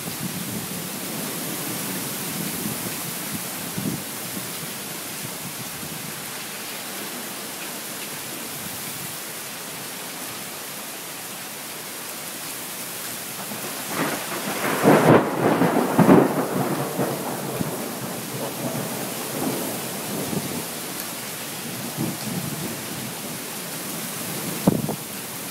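Heavy rain falling steadily through a thunderstorm. Just past halfway, a thunderclap crackles and rumbles loudly for a few seconds, then dies away, and a short sharp crack comes near the end.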